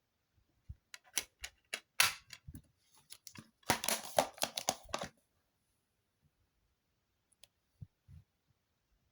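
Plastic DVD case and packaging being handled: a run of sharp clicks and rattles, then about a second of dense crackling, dying away to a few faint taps.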